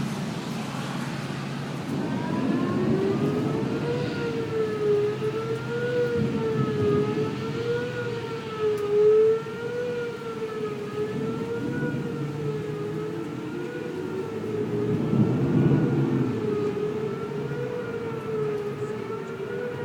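Tornado warning siren wailing, its pitch rising into place about two seconds in and then wavering slowly up and down, over a rumble of wind and traffic.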